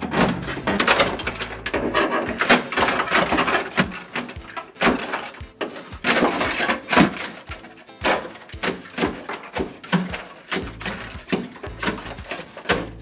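A steel scraper chipping and prying dry-ice-frozen sound-deadening mat off a car's sheet-metal floor pan: irregular sharp knocks and cracks as the brittle, frozen mat snaps and breaks away from the metal, with scraping in between.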